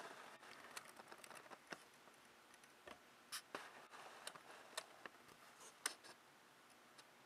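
Near silence: faint room tone with a scattering of small, irregular clicks.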